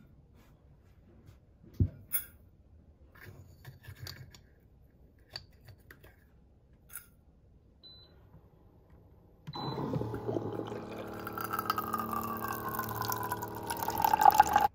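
Water from a countertop water dispenser pouring into a stainless-steel mug of instant coffee granules. It starts abruptly about two-thirds of the way in and grows louder toward the end, with a ringing tone that slides steadily down as the mug fills. Before it come a few light clicks and taps and two short high beeps.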